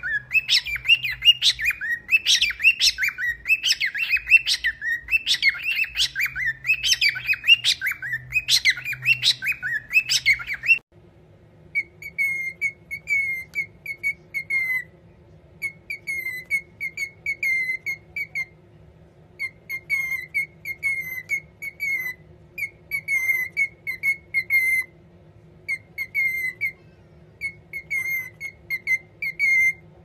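Cockatiels calling: for about ten seconds a run of harsh, chattering squawks, then after a sudden cut a cockatiel chirping one short whistled note in quick runs of about five, over a faint steady hum.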